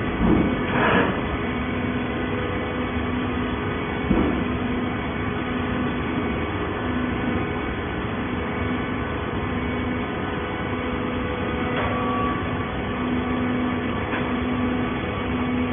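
Hydraulic baler's power unit running with a steady mechanical hum, a low tone pulsing on and off, and a few knocks near the start and about four seconds in.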